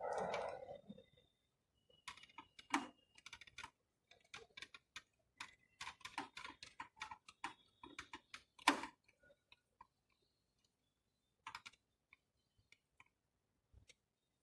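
A short rustle at the start, then a run of irregular light clicks and taps, densest in the middle and thinning out near the end: hands handling the parts of a fire alarm panel's display board.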